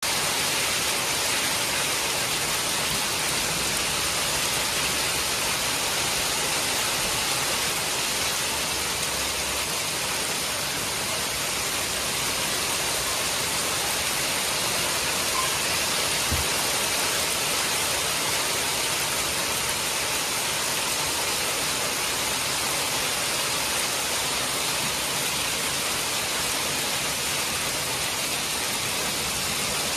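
Hail and heavy rain falling on a corrugated metal patio roof and the yard around it: a dense, steady hiss of countless small impacts that does not let up.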